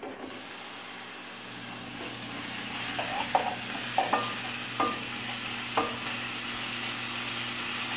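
Raw ground meat sizzling as it hits a hot frying pan of onions and garlic on a gas stove, starting suddenly and getting louder from about two seconds in. A wooden spoon stirs it, with about six short scrapes and knocks against the pan a little past the middle.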